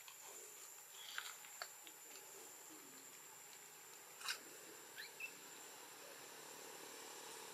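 Near silence over a faint steady high hiss, broken by a few faint short clicks and two or three brief high squeaks, the clearest about four to five seconds in.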